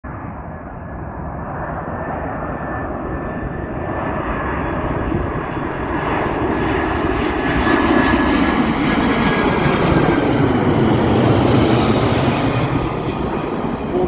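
Boeing 747-400F's four turbofan engines on final approach, passing low overhead: a dense engine rumble that grows steadily louder to a peak about two thirds of the way through, with a faint high whine that sinks a little in pitch as the jet goes by.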